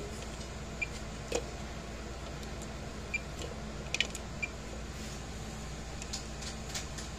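Multimeter probe tips clicking against solder joints on a fence charger circuit board during a diode check, with a few brief high chirps from the meter, over a steady low hum.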